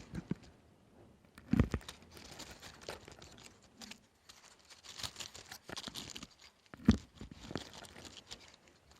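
Rain pattering, with irregular clicks of drops striking a hard surface close by and two louder thuds, one about a second and a half in and one near seven seconds.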